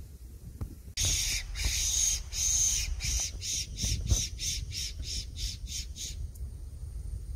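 A fox whistle blown in a run of high-pitched squeals, long at first, then shorter and quicker, stopping about six seconds in. It imitates a rabbit in distress to call in foxes, over a low rumble of wind and handling.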